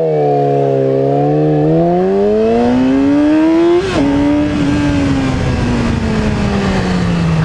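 Yamaha R6 sport bike's inline-four engine pulling away, its pitch rising for about four seconds. An upshift drops the note suddenly just before halfway, and then the note falls slowly as the bike rolls off the throttle.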